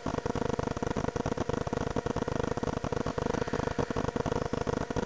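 A steady buzzing hum with a fast, even pulse and no clear events in it.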